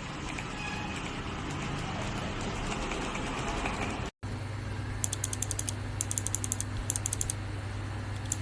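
Kailh Box White clicky keyboard switches being typed on: quick runs of sharp clicks starting about halfway through, after a stretch of steady noise with no clear clicks.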